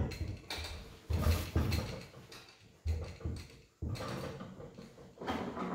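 Small stuck wooden drawer in a sewing machine cabinet being tugged and jiggled: a series of wooden knocks, thumps and scrapes.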